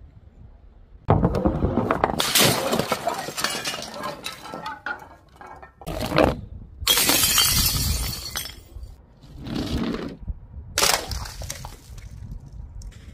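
A run of separate crashes of glass bottles smashing on a tiled floor, some packed with coloured sand and water beads. The longest and loudest shattering comes about seven seconds in, and a short sharp crash follows near eleven seconds.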